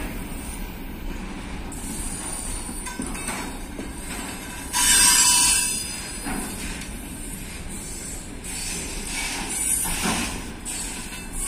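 Freight train's container flat wagons rolling past, a steady rumble with wheels knocking over rail joints every second or two and a high wheel squeal; the squeal grows loudest for about a second, some five seconds in.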